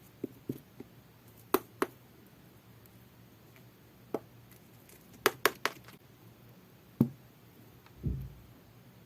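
Slime being scooped and handled in its container: scattered sharp clicks and taps, several in quick pairs and threes, with a duller low thump near the end.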